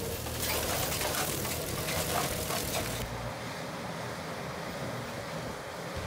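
Blue Diamond tracked remote-controlled mulcher running and shredding brush: dense engine noise mixed with crackling debris. About three seconds in it cuts off abruptly to a duller, steadier machine sound of a skid steer clearing brush.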